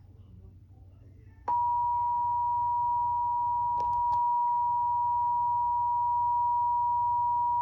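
Weather emergency alert attention tone: after a brief quiet gap, a single steady tone near 1 kHz comes on about a second and a half in and holds unchanged. It signals that a new National Weather Service warning message is about to start.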